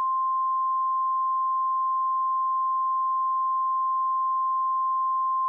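Emergency alert tone: a single steady electronic beep near 1 kHz, held without a break or change in pitch.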